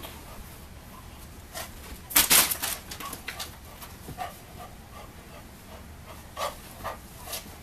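Olde English bulldog playing with a toy in its mouth, making short breathy huffs. The loudest is a quick cluster of them about two seconds in, with a few smaller ones later.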